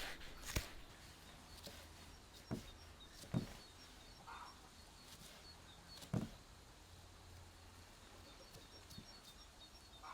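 Faint outdoor birdsong, short high chirps in quick runs, with a few sharp knocks scattered through it.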